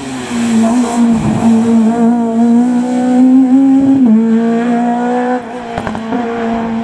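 Peugeot rally car's engine held at high revs on a stage run. The pitch dips briefly about a second in and again about four seconds in, and a few sharp cracks come near the end.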